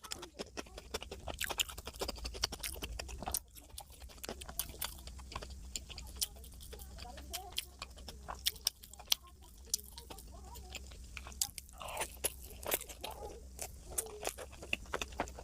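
Close-miked chewing and crunching of food, with many quick, sharp mouth clicks, thickest in the first few seconds and sparser after.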